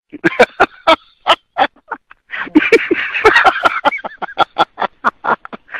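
Donkey braying: a string of short, sharp blasts about three or four a second, then a longer stretch of louder, drawn-out hee-haws that rise and fall in pitch.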